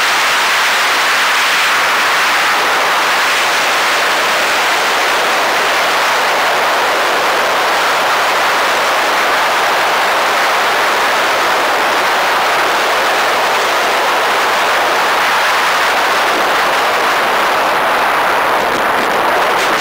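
Steady rush of air past the canopy of a Caproni Calif A-21 two-seat glider, heard from inside the cockpit on final approach with no engine running. Near the end the sound roughens a little as the glider touches down and rolls on grass.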